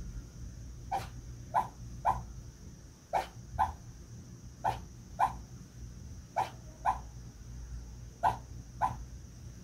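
Bichon Frise talking in its sleep while dreaming: short, high, squeaky whimpering yelps that crack, coming in quick runs of two or three about half a second apart, about a dozen in all.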